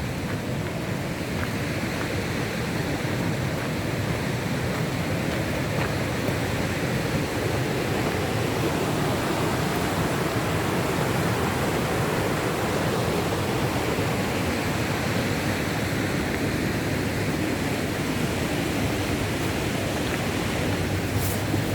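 Rushing white water of river rapids, a steady, even rush with no breaks.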